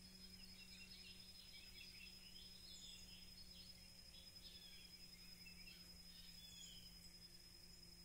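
Near silence: faint outdoor ambience with scattered soft bird chirps over a steady low hum.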